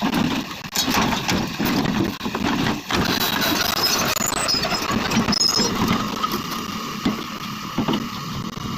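Excavator's diesel engine running and working as the machine moves down off the truck, with a few sharp knocks along the way.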